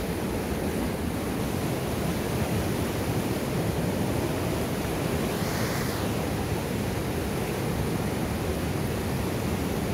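Steady rushing of a swollen, fast-flowing mountain river pouring over rapids.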